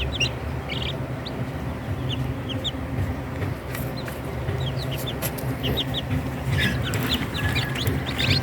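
Newly hatched chicks peeping: many short, high, falling peeps, scattered at first and coming thicker from about six seconds in, over a steady low hum.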